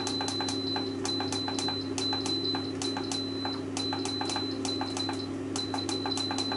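Andrew James halogen oven's control panel being used to add time to the timer: a rapid run of clicks, about four a second, with short high beeps in runs between them. Under it runs the steady hum of the oven's fan.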